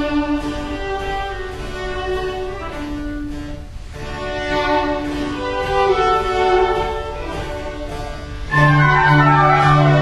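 Instrumental background music of held notes, growing louder with deeper sustained notes about eight and a half seconds in.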